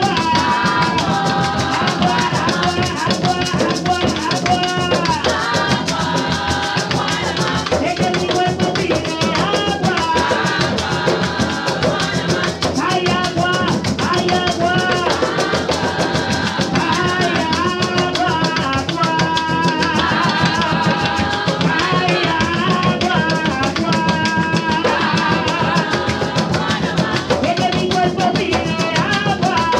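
Live Puerto Rican bomba: barril hand drums play a steady driving rhythm with a shaken maraca, while voices sing over them.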